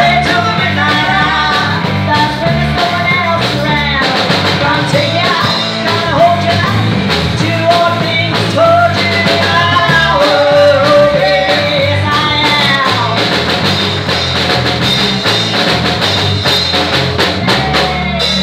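Live rock band playing loud: a woman singing into a microphone over electric guitars and a drum kit.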